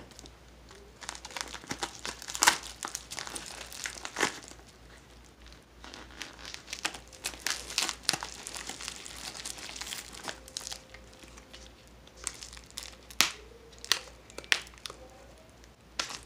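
Plastic bubble mailer crinkling and crackling as it is handled, with irregular crackles and a few louder sharp snaps.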